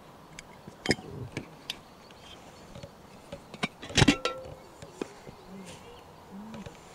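Stainless steel camp pot, lid and gas canister being unpacked and set down: scattered light clinks and knocks, with a louder metallic clatter and a brief ring about four seconds in.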